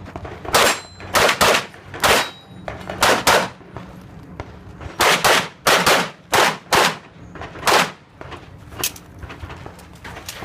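Handgun fired in quick strings of pairs and small groups, about a dozen sharp shots with short pauses between the groups.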